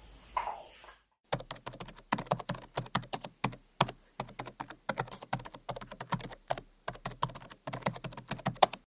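Keyboard typing sound effect: a fast run of keystroke clicks, several a second, starting about a second in and stopping just before the end.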